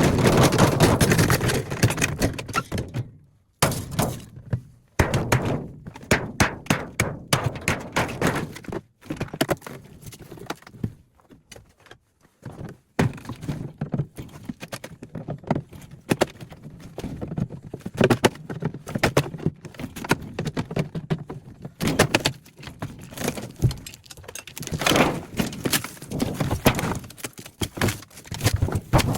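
Repeated thunks, knocks and metallic clatter of a refrigerator being taken apart by hand for scrap metal, broken by a few sudden cuts.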